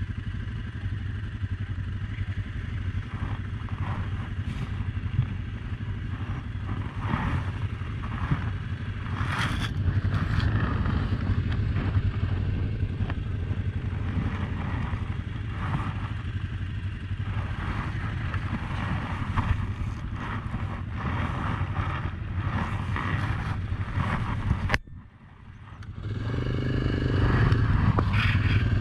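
ATV engine idling steadily, with other off-road vehicles' engines running alongside and some light clatter. A little before the end the sound drops out briefly, then an engine comes back louder and higher in pitch.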